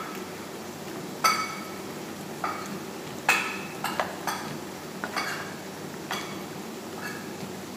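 Wooden spatula stirring and tossing noodles, meat and carrots in a frying pan, knocking against the pan about eight times with short ringing clanks, over a steady low sizzle.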